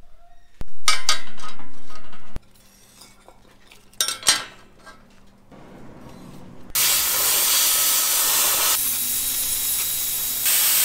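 Handheld plasma cutter cutting steel plate, a loud steady hiss that starts about two-thirds of the way in. Two short loud bursts of noise come before it.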